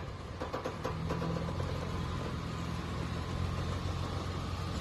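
Off-road SUV engine idling with a steady low hum that settles in about a second in.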